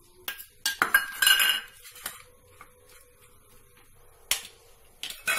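Kitchen utensils clinking: a spoon and small dishes knock against a tiffin box as chopped ingredients go in. A cluster of sharp clinks with a brief metallic ring comes about a second in, and a couple more knocks come near the end.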